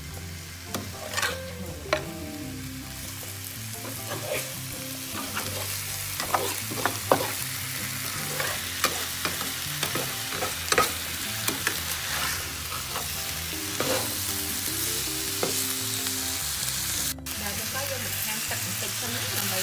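Catfish pieces and kroeung spice paste sizzling as they stir-fry in a non-stick frying pan, with a steady frying hiss. A metal spatula stirs and scrapes through them, making frequent sharp clicks against the pan.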